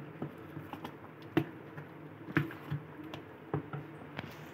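Steel spoon stirring thick idli batter in a stainless steel bowl: soft squishing of the batter with irregular clinks of the spoon against the bowl, the sharpest about a second and a half in and again near the middle.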